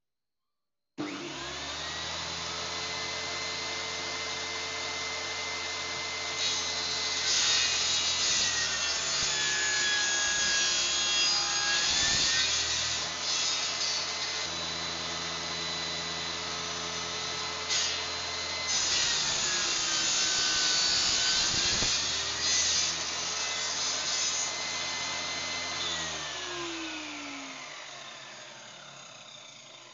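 Table saw switched on about a second in and running steadily, then making two 45-degree cuts through wooden frame pieces, its pitch sagging as the blade takes each cut. It is switched off near the end and winds down.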